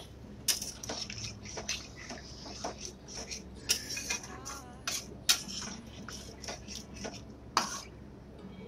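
Metal spatula scraping and clinking against a metal kadai while stirring chicken curry with a little water just added: irregular scrapes with sharper knocks now and then.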